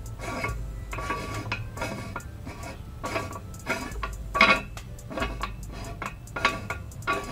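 Cast-iron threaded end ring of a hand-cranked pelleting machine being turned by hand over its die plate, metal grating and clinking on the threads in short strokes, roughly two a second.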